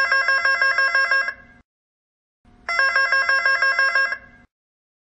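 Electronic call tone of a video door-entry intercom ringing twice. Each ring lasts about a second and a half and warbles quickly between pitches, with a pause of about a second between the rings.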